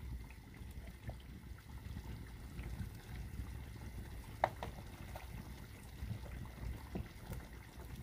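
Meat stew bubbling in an aluminium pot over an open wood fire, under a low steady rumble, while a metal spoon stirs it; one sharp ringing clink of the spoon against the pot about halfway through, among smaller ticks.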